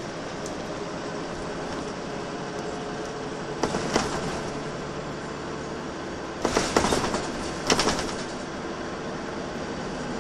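Volvo B10BLE single-deck bus heard from inside the cabin, its engine running steadily under road noise. There are three short spells of sharp rattling, about four seconds in and twice more around seven and eight seconds.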